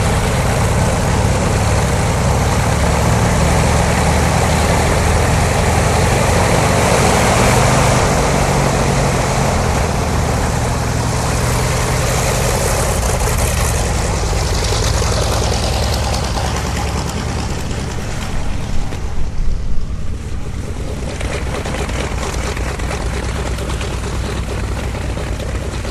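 Diesel engine of a MAN semi-tractor running as it pulls a circus trailer away, a steady low drone that fades after about two-thirds of the way through. A few brief louder knocks come shortly after the fade.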